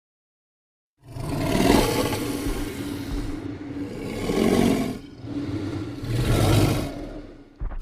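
Creature sound effect for Irritator, a spinosaurid dinosaur: after about a second of silence, a long rasping, rumbling growl that swells three times and fades away near the end.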